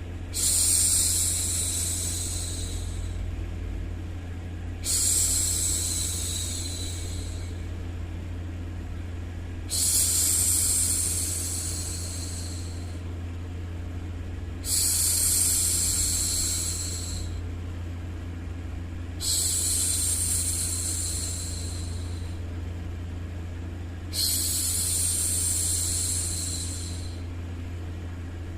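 A woman's voice hushing 'shhh', repeated about every five seconds, six times, each shush starting suddenly and fading over two to three seconds. Underneath is a steady white-noise bed with a constant low hum.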